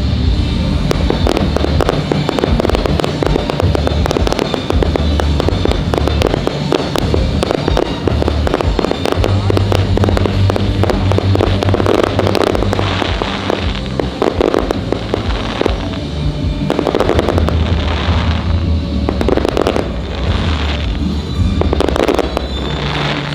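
Fireworks crackling in a dense, rapid stream, with several louder swells in the second half. Music plays underneath.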